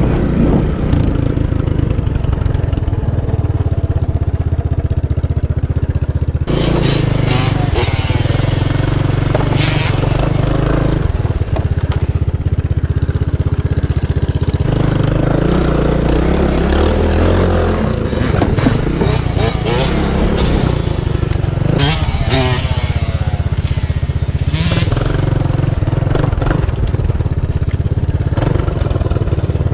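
Motorcycle engine running: a steady low idle at first, then from about six seconds in louder and rougher, its pitch rising and falling as it is revved, with sharp bursts of noise.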